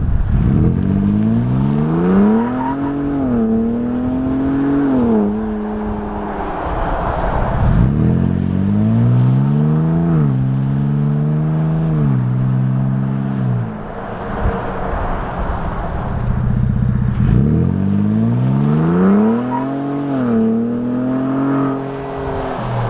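Ford Bronco Raptor's twin-turbo 3.0 L V6 exhaust during three hard acceleration runs. In each run the engine pitch climbs, drops at a gear change, climbs again and then eases off.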